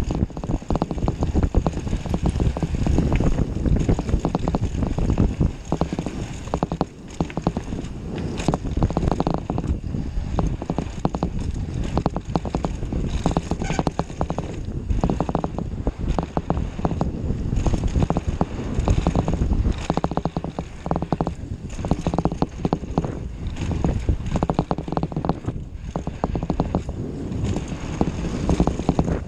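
Mountain bike descending a dirt trail at speed: wind buffeting the microphone, tyres rolling over dirt and the bike rattling with many small knocks over bumps.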